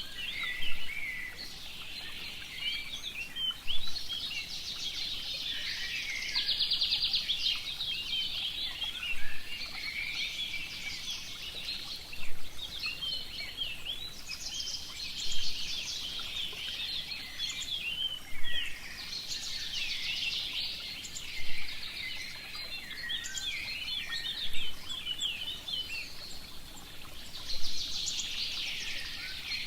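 Forest birdsong: many small birds chirping and trilling at once, with a louder call standing out about every three seconds.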